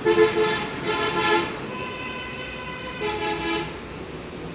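Vehicle horns honking over background traffic noise: two short honks in the first second and a half, a longer steady horn note after them, and another short honk a little after three seconds.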